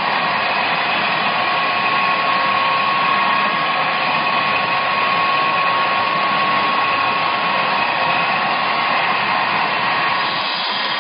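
Automatic dumpling and samosa making machine running: a steady whirring motor noise with a thin, even whine held over it.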